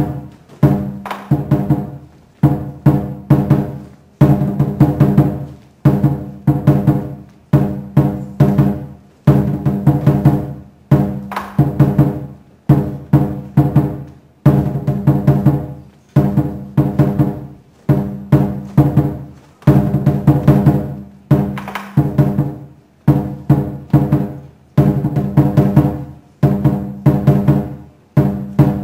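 Looped Chinese lion dance music: a large drum beaten with ringing metal percussion, in loud phrases of strokes that repeat about every two seconds.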